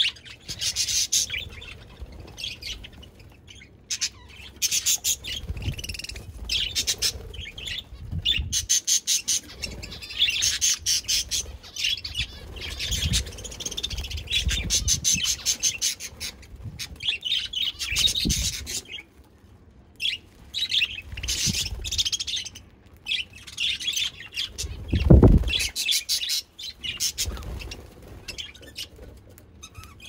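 A group of budgerigars chattering and chirping in quick, rapid-fire bursts with short pauses. A dull low thump sounds about five seconds before the end.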